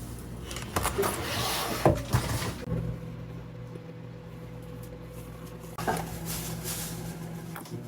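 Kitchen handling noises: a few knocks and clatters in the first couple of seconds and another near the end, with a steady low hum setting in after about three seconds.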